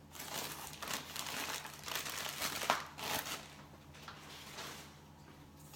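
Plastic air-pillow packing crinkling and rustling as it is handled and pulled out of a cardboard shipping box, with one sharp crackle near the middle; the rustling fades for the last couple of seconds.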